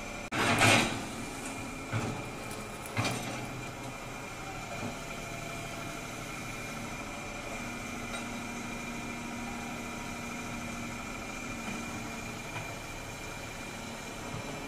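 Caterpillar hydraulic crawler excavator running steadily while digging, with a steady high whine over the engine hum. A loud clatter comes about half a second in, then two sharper knocks about two and three seconds in.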